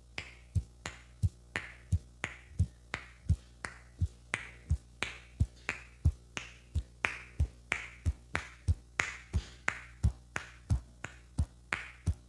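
Hands rhythmically slapping and tapping on a person's head in a champi head massage, about three strokes a second, a mix of dull thuds and sharper slaps.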